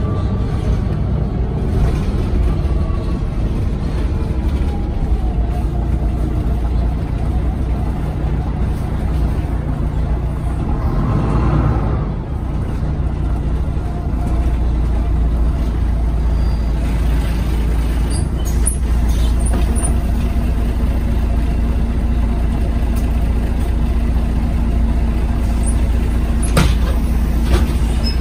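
Inside a MAN NG363 Lion's City articulated bus under way: the diesel engine and Voith automatic gearbox make a steady drone. A rising whine comes about eleven seconds in, the drone's pitch shifts just after, and a few sharp clicks and rattles come in the second half.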